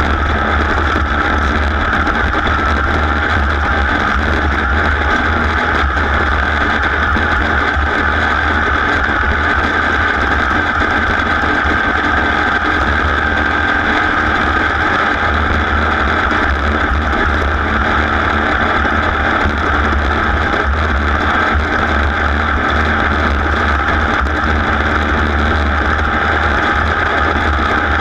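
A racing machine's engine running steadily and loudly, with no clear changes in revs.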